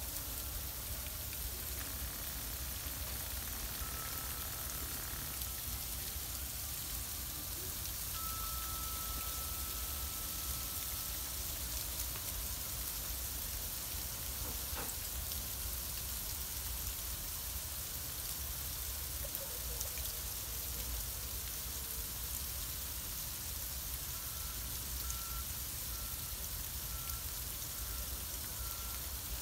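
Freezing rain pattering steadily on ice-glazed ground and cars, a constant hiss, with a low rumble underneath. Faint high beeping near the end.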